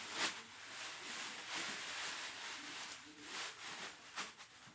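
Thin plastic shopping bags rustling and crinkling as they are handled, a continuous crackly noise with scattered sharper crackles.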